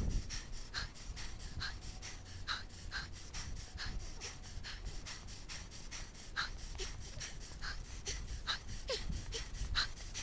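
A cyclist panting hard and fast, about two to three breaths a second, while climbing a very steep hill at walking pace, with a low rumble of wind and tyre underneath.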